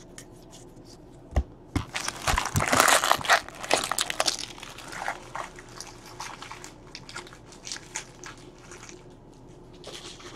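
Baseball trading cards and pack wrappers being handled: a few clicks, then a dense stretch of crinkling and crackling about two seconds in, then scattered light ticks.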